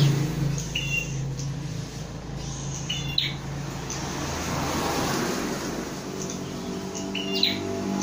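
A caged prenjak (prinia) gives three short, high chirps, about a second in, about three seconds in and near the end, over a steady low hum.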